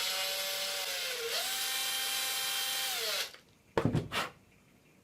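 Small handheld electric power tool running with a steady whine. It bogs down briefly about a second in, then runs at a higher pitch until it winds down after about three seconds. A few sharp knocks follow near four seconds.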